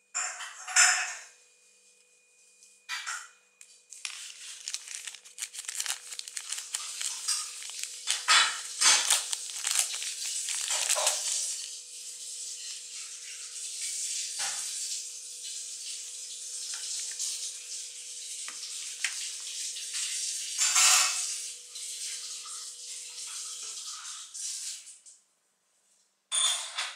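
Close handling noise of phone accessories and their packaging: a continuous crinkly plastic rustle with several louder rustling swells and light knocks, as a wound earphone cord and a USB cable are unwrapped and handled.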